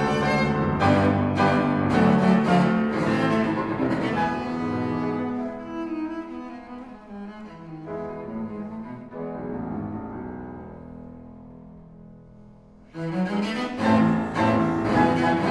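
Cello and piano playing a fast classical-style movement together, with bowed cello lines over piano chords. About five seconds in the music softens and thins out, dying away, then both instruments come back in loudly near the end.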